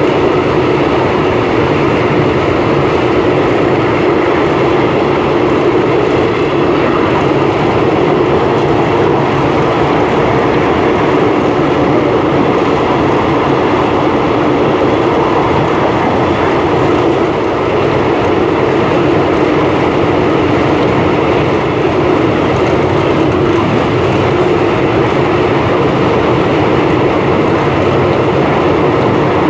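Passenger train running at speed, heard from on board: a loud, steady rush of wheel and rail noise with wind.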